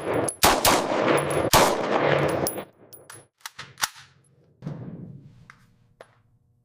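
Rifle gunfire: a quick string of loud shots that fills the first two and a half seconds, a few sharp clicks, then one more shot about four and a half seconds in that dies away.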